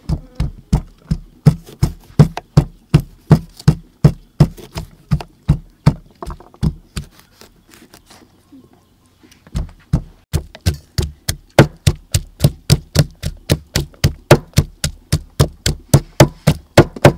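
Wooden pestle pounding in a mortar, a steady run of sharp knocks about three a second, broken by a pause of about two seconds partway through before the pounding starts again.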